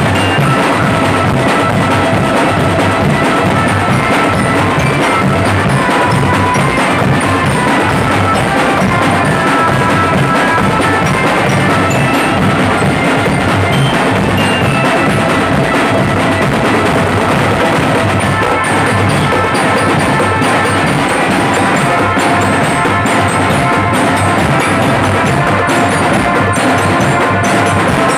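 A marching drum band playing: a massed section of bass drums and snare drums beats a steady, driving rhythm, while melodic instruments carry a tune of held notes above it.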